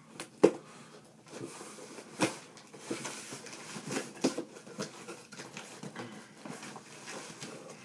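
Handling noises from a cardboard box and a pocket knife: scattered sharp clicks and knocks, the loudest about half a second in, with scraping and rustling as the knife is worked at the box.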